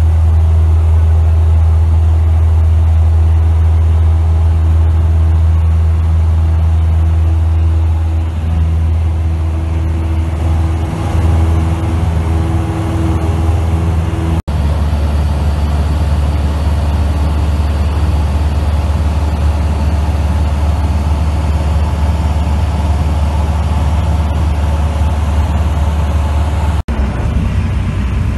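Single-engine light aircraft's piston engine and propeller running steadily, heard from inside the cockpit as a loud, constant low drone. The sound breaks off abruptly for an instant about halfway through and again near the end, where separate recordings are joined.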